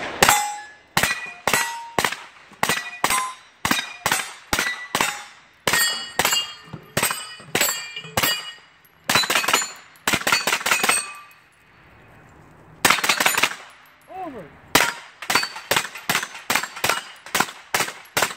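Strings of rapid rifle shots, several a second at times, with steel targets ringing as they are hit; a short pause breaks the firing about two-thirds through.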